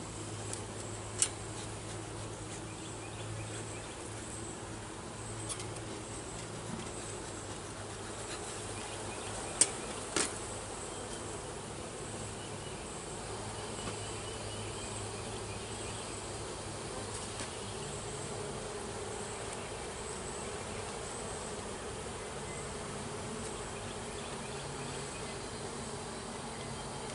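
Honeybees buzzing in a steady hum around an open hive. A few sharp knocks stand out: one about a second in and two close together around the ten-second mark.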